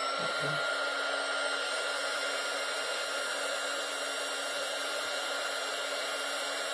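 Handheld heat gun running steadily, its fan giving a high whine over the rush of blowing air, as it heats a solder-seal wire splice until the solder melts.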